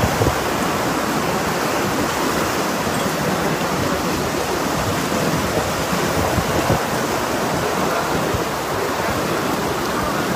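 Heavy rain pouring in gusty wind: a steady rushing hiss of rain.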